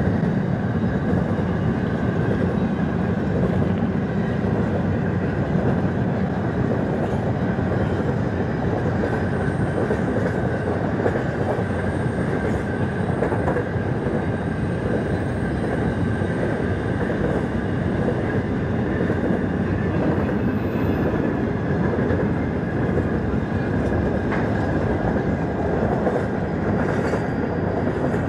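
Empty ore train's wagons rolling past on the rails: a steady clatter and rumble of wheels on track, with a faint thin squeal above it.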